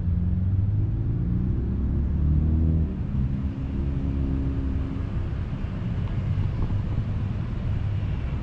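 Road traffic: a motor vehicle's engine running past, with pitch changes and a low rumble. It is loudest about two and a half seconds in, then drops back to a steady traffic rumble.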